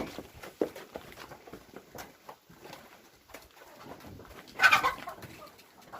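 Domestic birds in a coop, the hens and pigeons of the farm, with scattered small clicks and rustles and one short, loud call about four and a half seconds in.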